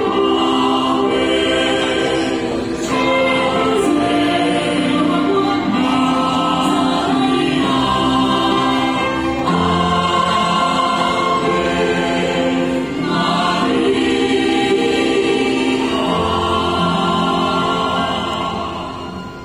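A church choir singing a hymn in parts, with long held chords that change every second or two. The sound falls away near the end as a phrase closes.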